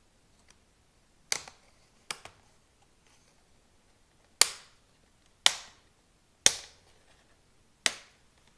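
Plastic clips of a laptop's screen bezel snapping loose one after another as the bezel is pried off: six sharp snaps about a second apart, the first two fainter.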